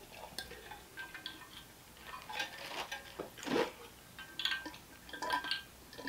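Someone drinking from an insulated metal water bottle: faint gulps and swallows spread through, with a few light metallic clinks.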